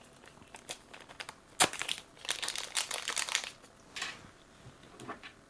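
Crinkling of small plastic packaging with scattered light clicks and taps, in short irregular bursts, as a small collectible figure and its accessory are handled and unwrapped.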